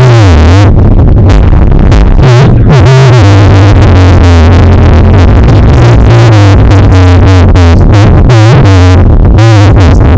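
Loud, distorted electronic music with a warbling synthesizer over heavy booming bass, bass-boosted until it clips at full volume.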